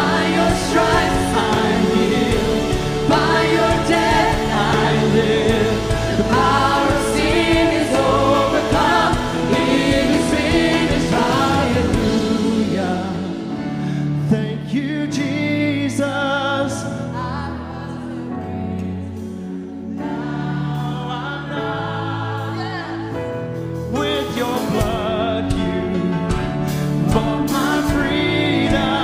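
Live worship band playing with several voices singing together over guitars, bass and drums. Around the middle the band thins out to a quieter passage, then builds back to full in the last few seconds.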